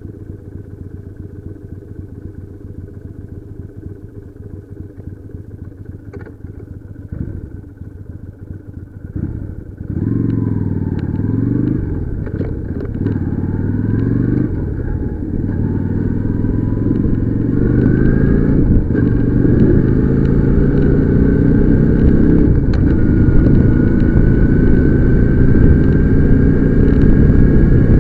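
Motorcycle engine running at low speed, then pulling away about ten seconds in. The pitch rises and falls a few times with the gear changes, then climbs steadily as the engine gets louder under acceleration.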